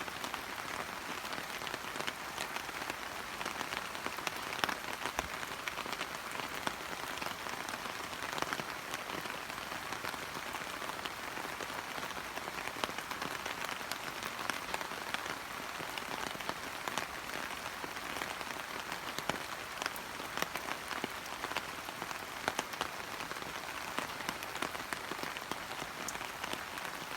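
Steady rain falling on hydrangea leaves, an even patter with many single drops ticking close by.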